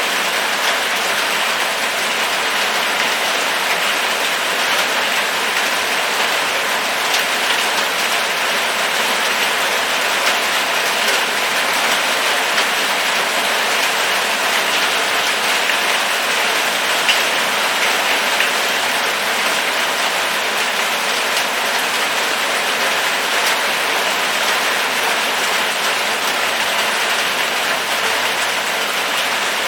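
Steady, even rainfall, with scattered sharper ticks of individual drops hitting a surface.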